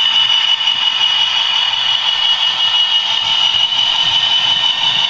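A Bachmann model Class 66 locomotive's DCC sound decoder playing a diesel engine sound through its small onboard speaker, steady and tinny with a high whine, while the model runs along the track.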